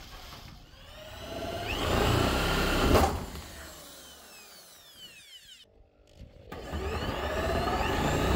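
Corded electric drill driving screws through corrugated galvanized steel roof sheeting. The motor winds up and whines for a couple of seconds, with a sharp crack about three seconds in, then fades. After a short break it starts again and runs on steadily.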